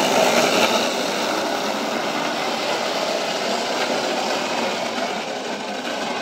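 A goitibera, a gravity-powered wooden cart, rolling fast down an asphalt road, its wheels making a steady rolling noise that slowly fades as the cart moves away.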